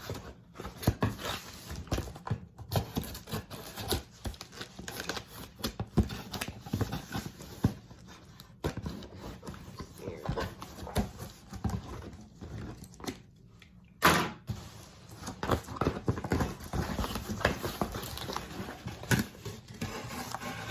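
A cardboard shipping box being opened and handled by hand: irregular crinkling, rustling and small knocks of cardboard and packing material, with one louder burst of noise about fourteen seconds in.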